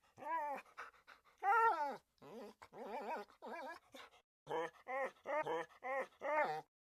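Dog whimpering: a few drawn-out whines that rise and fall in pitch, then a quick run of about six short yelps in the second half.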